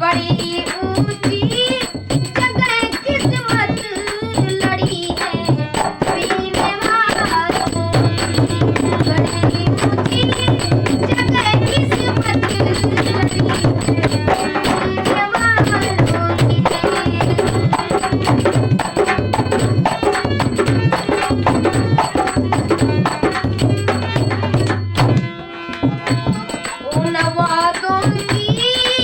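Ghazal music: a tabla beat under a melody, with a brief break about 25 seconds in.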